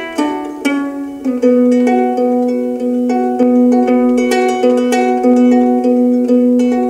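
Solo ukulele played fingerstyle: a plucked melody of separate notes ringing over a low note that keeps sounding underneath.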